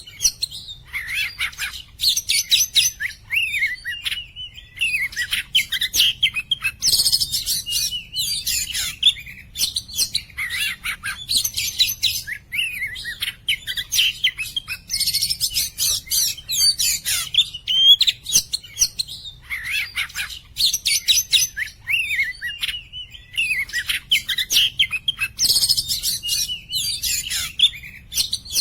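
Oriental magpie-robin (kacer) singing without a break: a varied stream of whistles, slurred notes and chirps, with a burst of high, rapid notes every several seconds. A faint steady low hum runs underneath.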